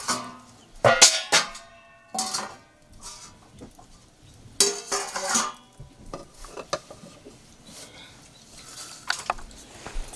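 Metal dishes and a serving spoon clinking and scraping as food is served from a pot onto metal plates. There are a few sharp clinks that ring briefly, loudest about a second in and again about five seconds in, with quieter scrapes and taps between.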